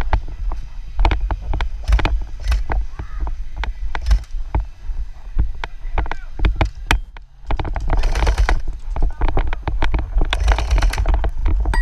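Airsoft gunfire: sharp clicks and pops at uneven spacing, thickening into denser bursts about eight and ten and a half seconds in, over a low rumble of handling and movement.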